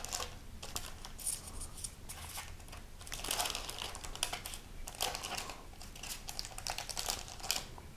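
Fingers flipping baked, battered cauliflower pieces on a parchment-lined baking sheet: soft crinkling of the parchment paper and a run of small, quick clicks as the pieces are turned and set down.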